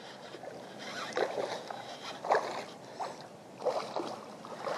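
A hooked largemouth bass thrashing and splashing at the water's surface during the fight, several short, irregular splashes.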